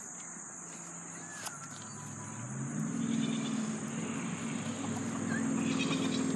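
Crickets trilling steadily, with a few faint bird chirps. About two and a half seconds in, a low engine-like drone comes up, rises slightly and then holds steady, louder than the insects.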